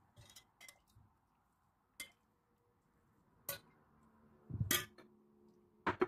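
A metal ladle and a stainless steel pot clinking and knocking against each other and against a glass baking dish while syrup is ladled out: about six separate clinks, the loudest near the end with a short metallic ring.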